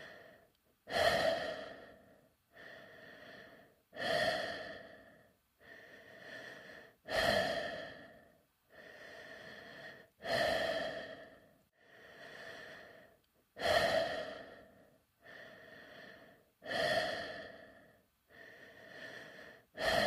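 Slow, regular breathing inside a space helmet, about one breath every three seconds: each cycle a quieter, steady breath followed by a louder one that starts sharply and fades away.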